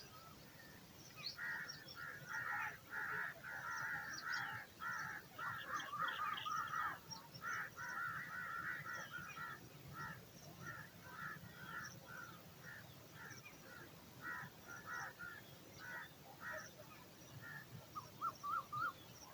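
Eagle chick giving a long series of begging calls for food, rapid and run together at first, then thinning into separate short calls, with a brief few more near the end.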